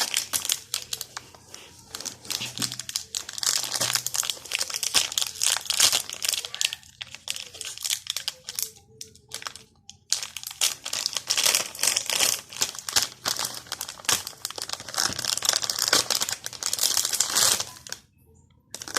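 Sour-candy packet being opened and handled, its wrapper crinkling and crackling in quick irregular bursts, with a short pause about nine seconds in and stopping near the end.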